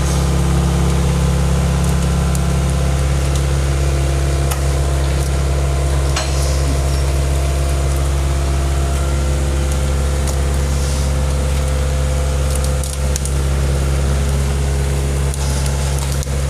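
Excavator's diesel engine running steadily, with scattered sharp knocks and cracks over it.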